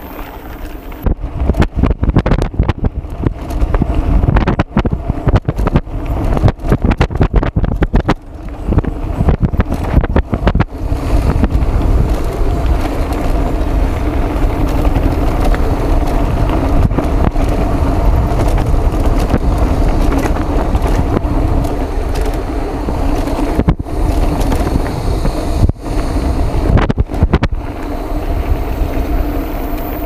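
Wind buffeting the microphone and knobby tyres rumbling over a dirt road as a mountain bike rolls downhill at speed, with a steady buzz. It is choppy and jolting for the first ten seconds or so, then steadier.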